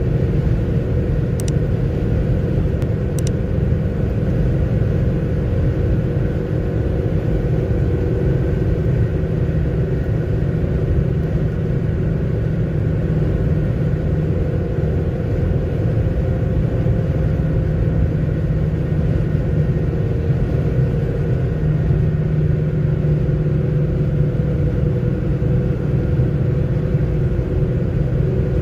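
Steady in-cabin noise of a car cruising at motorway speed: a continuous low rumble of tyres and engine with a faint steady hum.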